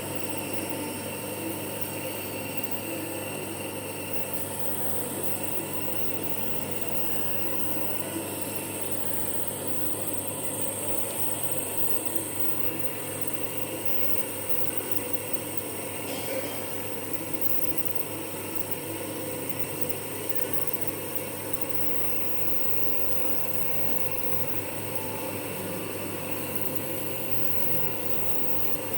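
Compressor nebulizer running with a steady, even motor hum, delivering vapour treatment for a child's cough and cold.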